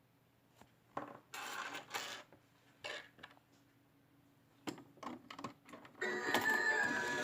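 Clicks and short metallic rattles, like coins being dropped into a mini toy claw machine, then an electronic tune starts about six seconds in and plays on.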